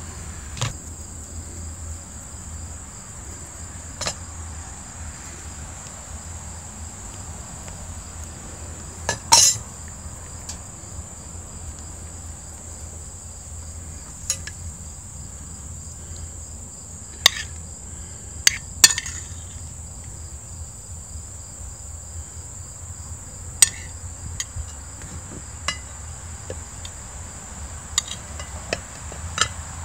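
A steady high-pitched chirring of insects, broken by scattered sharp clinks of a metal spoon against ceramic plates and a plastic burger press. The loudest clink comes about nine seconds in, and a quick cluster comes around eighteen seconds in.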